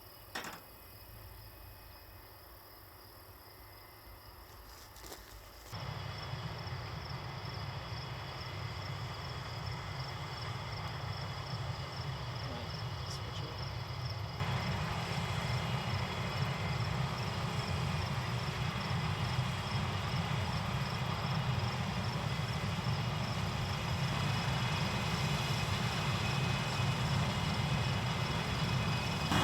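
Crickets chirping steadily. About six seconds in, the low, steady running of a heavy farm machine's engine cuts in abruptly and steps louder about halfway through, with the crickets still chirping over it.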